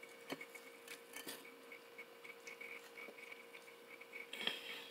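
Faint eating sounds of a person chewing: a few small mouth clicks early on and a brief louder smack about four and a half seconds in, over a faint steady hum.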